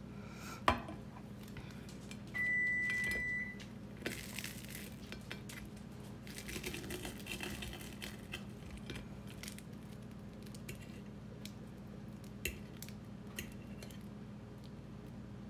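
Metal knife and fork clinking and scraping on a ceramic plate while cutting through a fried egg and crisp toast, with a sharp clink near the start and scattered lighter clicks. About two seconds in, a steady high tone sounds for about a second.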